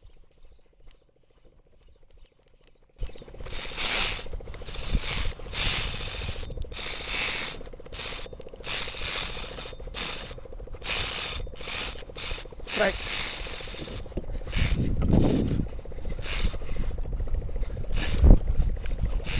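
Spinning reel's drag buzzing in repeated surges as a big fish pulls line off against it, starting about three seconds in. The fish is running and will not stop.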